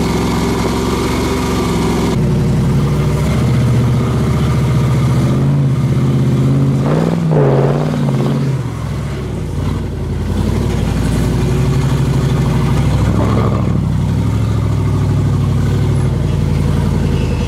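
Off-road rock buggy engine running at low revs while crawling, with a brief blip of revs about seven seconds in and another smaller rise near thirteen seconds.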